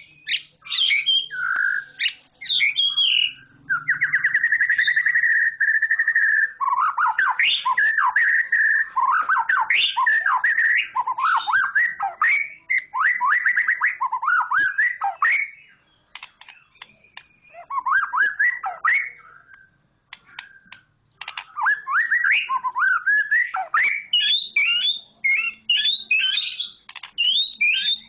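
A bird singing a long, varied song of whistles, sweeping notes and rapid chirps, loud and almost unbroken. It pauses twice in the middle and then resumes.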